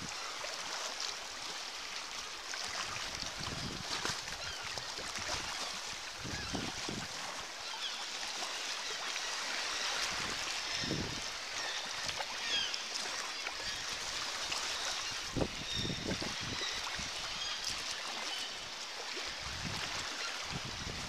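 Sea water lapping and sloshing around a kayak, with occasional low paddle splashes, and seabirds at the cliffs giving short high calls.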